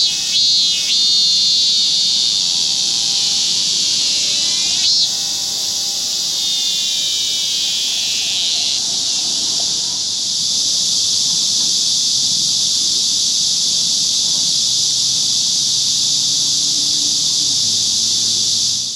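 A chorus of cicadas making a loud, steady, high-pitched buzz. Nearer calls sweep up and down in pitch over it near the start and again from about four to nine seconds in, and a faint low hum joins near the end.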